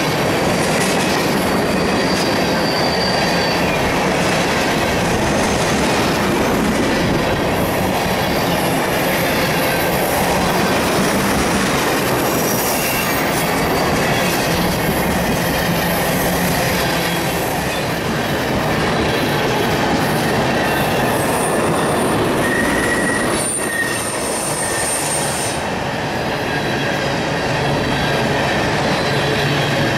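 Tank cars of a freight ethanol train rolling past close by: a steady loud rumble and clatter of steel wheels on rail, with a few brief high-pitched wheel squeals, the longest about three quarters of the way through.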